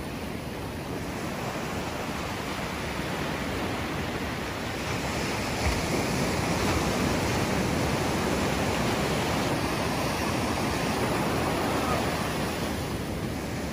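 Sea surf: small waves breaking and washing over a sandy beach, a steady rushing hiss that grows louder about halfway through.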